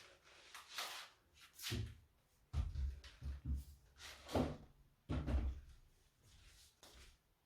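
Handling noise from the cordless stick vacuum's parts and charging cable: a string of separate knocks and clunks with some rustling, busiest in the middle few seconds and dying down near the end.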